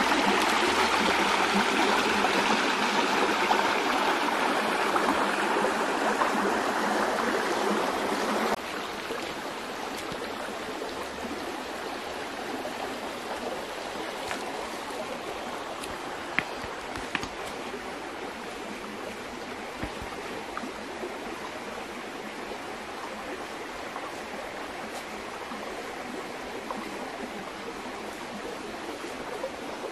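Shallow rocky stream running over stones, louder for the first eight or so seconds and then dropping suddenly to a softer, steady flow. A few faint clicks come during the softer part.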